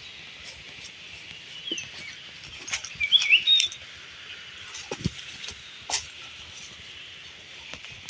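Small birds chirping in a quick cluster of short gliding calls about three seconds in, over a steady high hiss of outdoor ambience. A few sharp clicks and knocks fall in between.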